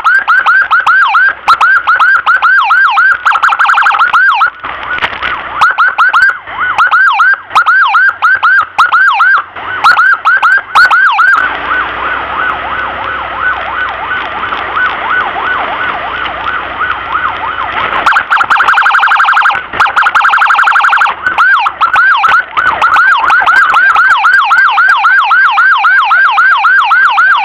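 Emergency vehicle's electronic siren sounding a fast yelp, loud and close. For several seconds in the middle it drops back to a quieter, steadier tone, then the fast yelp resumes.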